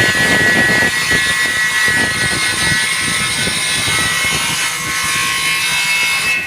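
An electric table saw running with a steady high whine while cutting wood.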